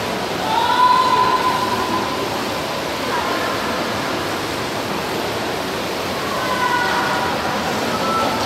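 Echoing din of an indoor swimming pool hall during a race: a steady wash of splashing water and crowd noise, with raised voices calling out about a second in and again near seven seconds.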